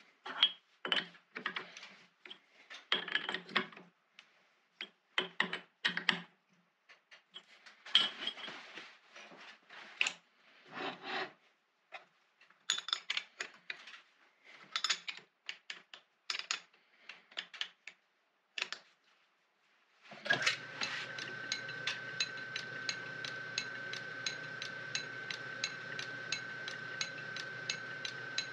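Metal clanks and rattles as the lathe's tailstock and drill chuck are handled and set up. About 20 s in, the 1921 Dalton B4 metal lathe is switched on and runs steadily, with a constant high tone and regular clicking from its drive belt.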